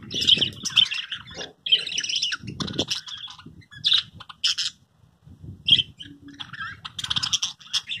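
A flock of caged budgerigars chattering, with rapid high chirps and warbles coming in bursts broken by short pauses.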